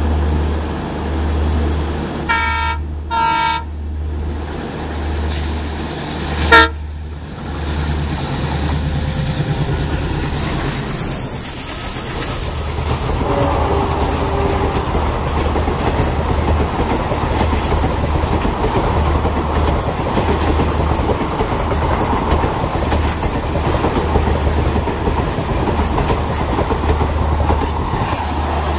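Indian Railways diesel locomotive horn sounding two short blasts and then a sharp, loud third blast a few seconds later. The train then runs past with a steady rush and clatter of coaches on the rails.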